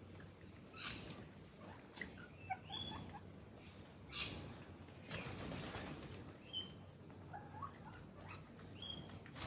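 A flock of Australian king parrots feeding on the ground, giving faint, scattered short squeaks and rising chirps about once a second.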